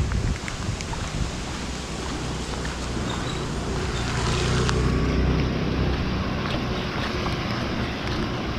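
Wind buffeting an action-camera microphone over the steady hiss of rain, with a few faint ticks. The noise swells briefly about halfway through.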